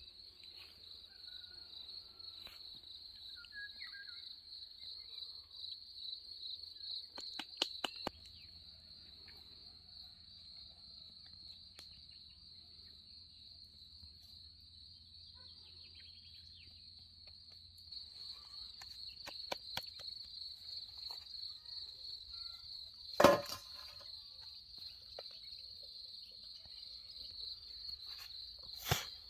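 A steady high-pitched insect trill, with a few light clicks about eight seconds in, one sharp knock a little past two thirds of the way through, and a smaller one near the end.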